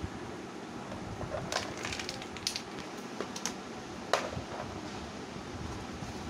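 Hard plastic parts of a baby rocking chair clicking and knocking as they are handled and fitted together: a cluster of light clicks about one and a half to three and a half seconds in, then one sharper knock a little after four seconds.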